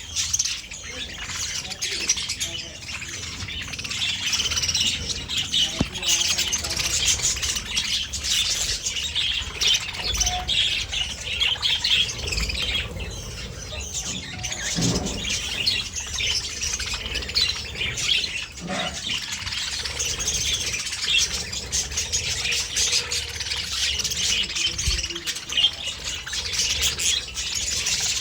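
Budgerigars chattering, chirping and squawking continuously in a busy, overlapping warble.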